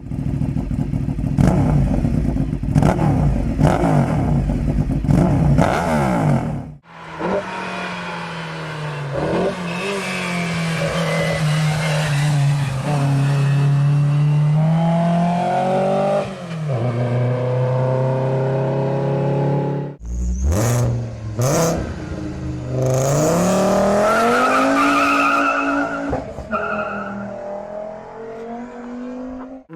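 V-engined cars revving, in three separate clips: first a loud, rough engine note with several sharp cracks, then about seven seconds in a smoother engine note that climbs and falls with the revs, then from about twenty seconds in another engine revving up twice in rising sweeps.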